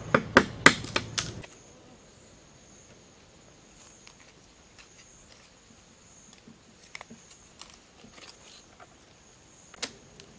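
A knife blade chopping and splitting bamboo strips against a wooden board, a quick run of sharp strikes that cuts off about a second and a half in. After that, a faint steady high insect drone and a few soft clicks of bamboo slats being handled.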